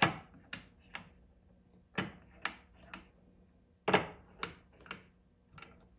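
Sharp plastic-and-metal clicks in clusters of two or three, about every two seconds, as an RCBS Little Dandy rotor powder measure is worked over .357 Magnum brass cases, dropping a powder charge into each case in turn.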